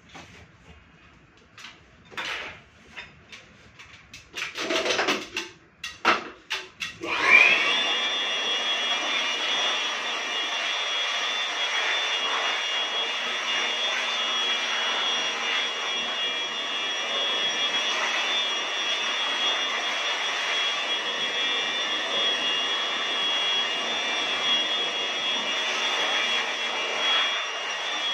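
Corded handheld electric air blower switched on about seven seconds in, spinning up with a rising whine and then running steadily at full speed, blowing dust out of a ceiling cassette air conditioner in a dry service. Before it starts, scattered knocks and rustles.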